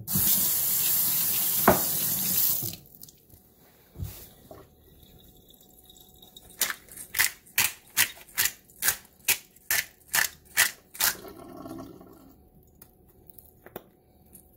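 Kitchen sink tap running as hands are rinsed under it, shut off about three seconds in. Later comes a run of about ten evenly spaced sharp clicks, two to three a second.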